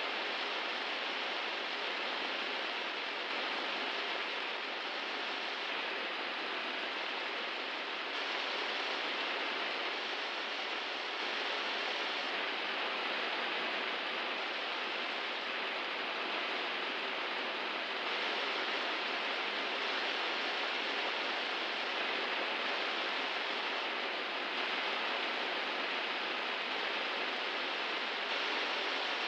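A steady, even hiss with no bangs, pops or crackles.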